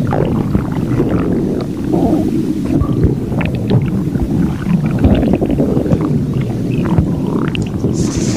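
A growling, gurgling stomach: a continuous low rumble with irregular gurgles and squeaks over it, the sound of a hungry belly.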